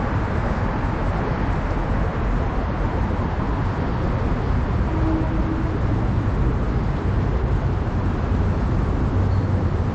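Steady low rumble and hiss of background noise, with a faint short hum about five seconds in.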